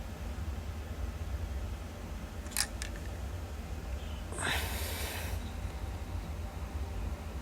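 Handling noises while unboxing a model train: two sharp clicks close together, then about a second of rustling or scraping, over a low steady hum.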